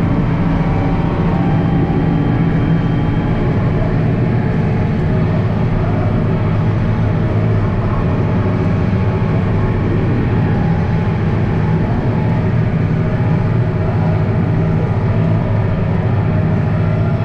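International Harvester 1586 tractor's six-cylinder diesel engine running steadily at a constant working speed.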